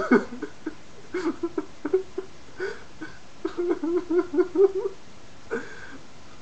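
A man laughing in short bursts, with a quick even run of laughs between about three and a half and five seconds in.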